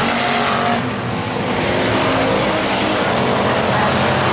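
Bomber-class stock cars racing, several engines running hard at once with overlapping pitches. The sound dips briefly about a second in, then swells back.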